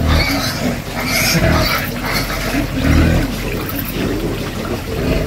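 An animal calling, several calls in a row, louder at the start and again about one and a half and three seconds in.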